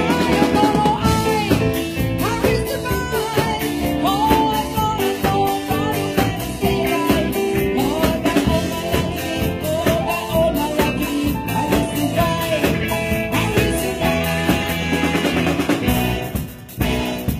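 Live amplified band playing: a woman singing over drum kit, electric bass guitar and electronic keyboard. The music drops away briefly near the end.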